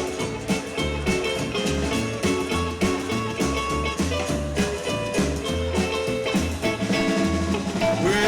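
Rock and roll band playing an instrumental passage without vocals: a steady, walking bass line under guitar.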